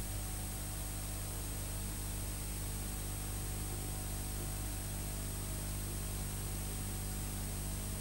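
Steady low electrical hum with a background hiss and no distinct event.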